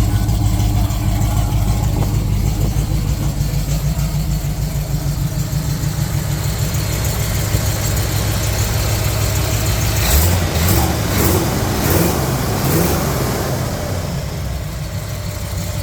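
The Jeep CJ7's AMC 304 V8, fitted with long-tube headers, idling steadily with a deep, even drone. About ten seconds in, the running sound shifts and a few sharp clicks or knocks are heard.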